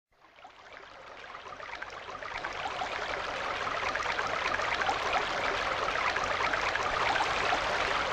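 A steady rushing, water-like noise, like a stream, fading in gradually over the first few seconds.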